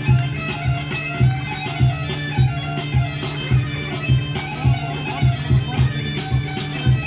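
Bulgarian gaida bagpipe playing a folk melody over its steady drone, with a tapan bass drum beating about every 0.6 seconds: traditional nestinari fire-dance music.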